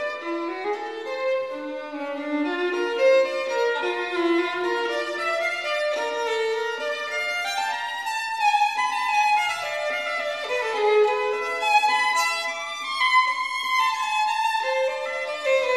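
Instrumental background music: a melody of held notes that step up and down in pitch.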